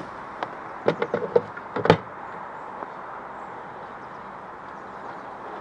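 A quick run of clicks and knocks, the last one the loudest, as gear is handled in a dinghy's wooden kitchen box; after about two seconds only a steady background hiss remains.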